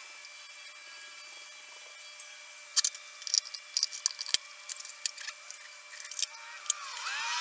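Irregular sharp metallic clicks and clinks of hand tools and engine parts being handled as the clutch is reassembled and the clutch cover is fitted. They start about three seconds in, after a stretch of steady faint hiss.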